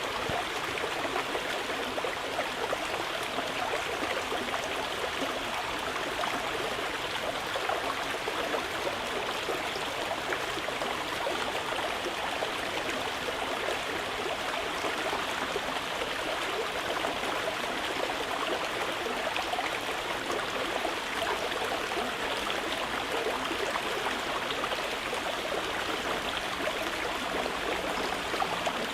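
Mountain river flowing, a steady, continuous rush of water over stones.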